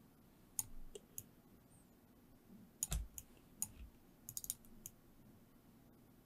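Faint clicks of a computer mouse and keyboard during image editing: about a dozen separate clicks, with a quick run of about five a little past four seconds in and a slightly heavier click with a dull knock near three seconds in.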